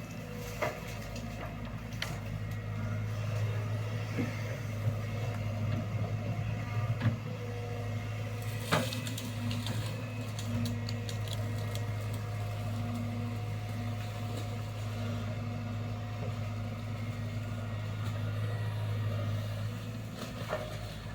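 Excavator's diesel engine running steadily with a low, even hum, with a few sharp knocks now and then.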